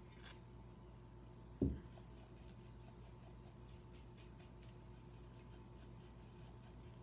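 Faint, repeated scratchy strokes of a paintbrush rubbing acrylic paint onto a ceramic piece, over a steady low hum. One low thump comes about a second and a half in.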